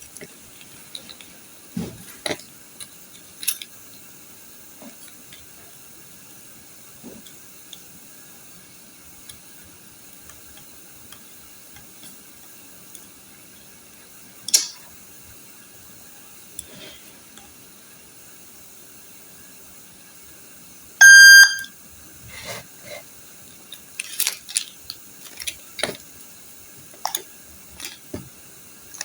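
Scattered small clicks and taps of handling, then one loud electronic beep lasting under a second about two-thirds of the way in, followed by a run of knocks and taps near the end.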